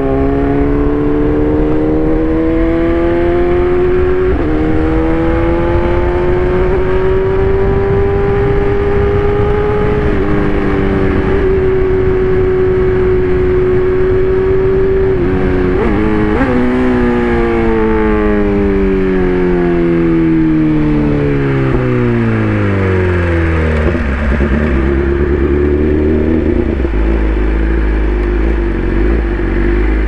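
Inline-four sportbike engine heard onboard, pulling up through the revs with brief breaks at the gear changes, then holding steady at cruise. A little past halfway the revs jump with quick downshifts, and the engine winds down steadily as the bike slows, settling to a low idle near the end.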